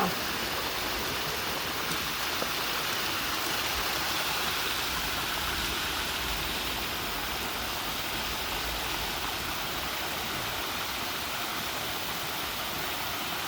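Waterfall rushing steadily into a pool: an even, unbroken hiss of falling water.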